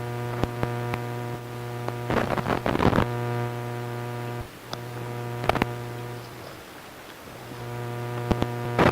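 Steady electrical mains hum with a buzzy edge, cutting out briefly twice in the middle, with a few sharp clicks scattered through.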